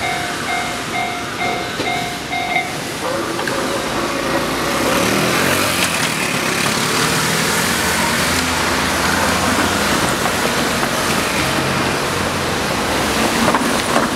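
Railway level-crossing alarm bell ringing at about two strokes a second, stopping about three seconds in as the crossing clears. Road vehicles then start across, their engines rising in pitch as they pull away.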